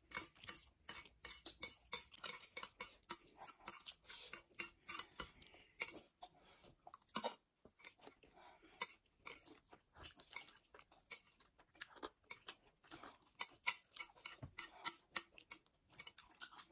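Metal chopsticks clicking and scraping on ceramic plates in quick irregular ticks, mixed with close chewing of noodles.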